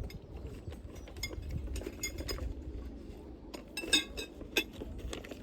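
Light metallic clinks and rattles of camping gear being handled, with a cluster of sharp, briefly ringing clinks about four seconds in and another just after.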